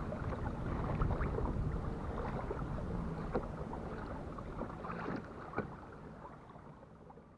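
Water lapping and splashing against a kayak's hull, with wind on the microphone, fading out near the end.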